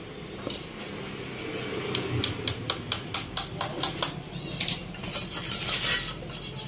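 Quick light metallic taps, about five a second for roughly two seconds, as the piston pin is worked through the piston and small-end needle bearing of a Yamaha RX135 two-stroke engine, followed by a couple of seconds of looser metal clatter.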